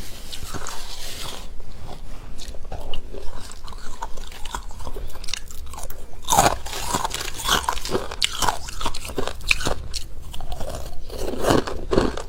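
Close-miked biting and chewing of crunchy frost: a fast, irregular run of crisp crunches.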